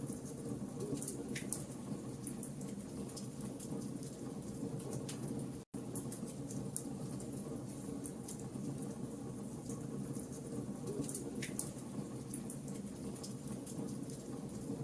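Wood fire burning in a fireplace: a steady low roar with scattered sharp crackles and small pops. The sound cuts out for an instant about six seconds in.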